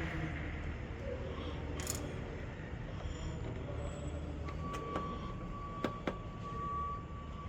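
Steady low hum of a machine shop, with a few light clicks and knocks as a sheet-metal control panel is handled and taken off. A faint steady whine starts about halfway through.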